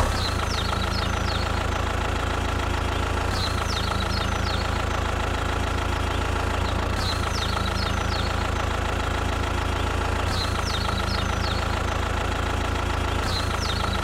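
Engine idling steadily, a recording looped about every three and a half seconds, with the same few high chirps coming back in each repeat.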